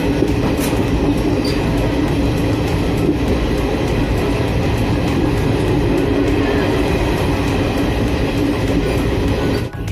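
Passenger train running along the track, heard from inside the coach: a steady, loud rumble of wheels and carriage with a low hum running through it.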